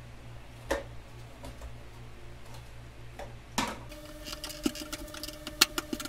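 Sharp plastic clicks and scrapes of a flat-head screwdriver prying at the snap-in clips of a microwave door's plastic face panel: a few spaced clicks at first, then a quick run of clicks in the second half.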